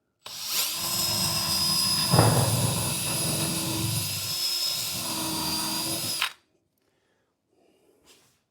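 Power drill boring a countersunk pilot hole for a confirmat screw into 3/4-inch melamine particle board with a large step drill bit. The motor spins up suddenly and bites hardest about two seconds in. It eases briefly around the middle and stops after about six seconds.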